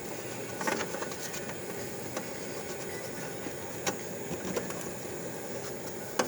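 A few light clicks and taps of a replacement display being handled and pressed onto its connector pins, over a steady background hum. The loudest click comes near the end.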